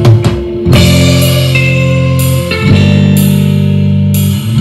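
Recorded music with guitar played back through a vintage Sansui 5050 stereo receiver and its speakers, long held notes changing about every two seconds.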